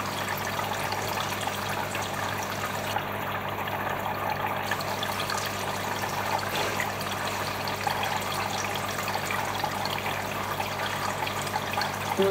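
Steady trickle and splash of water circulating in a fish tank, over a low steady motor hum.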